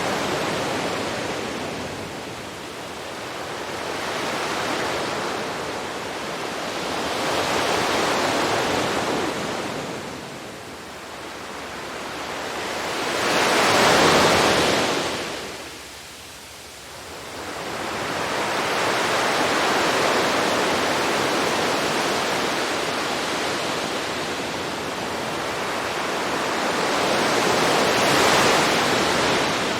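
Ocean waves breaking and washing in, the surf swelling and fading in slow surges every four to six seconds, with the loudest wave about halfway through.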